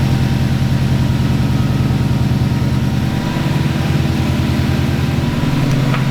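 A car engine idling steadily, with an even, rhythmic pulse.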